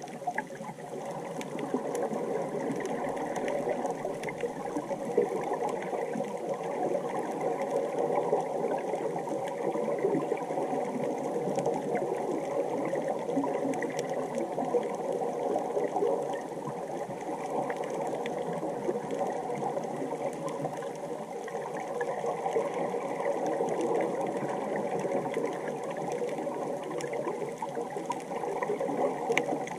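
Steady, muffled underwater hum with a constant tone, typical of a hookah diving air compressor running at the surface, heard through the water along with a churning, bubbling wash.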